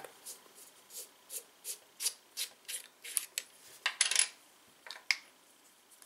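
The aluminium tail cap of an Olight S1 Mini Baton flashlight being unscrewed by hand: a run of short scraping ticks, about three a second, as the threads turn. Near the end come a few louder scrapes and clicks as the cap comes free and the battery is pulled out.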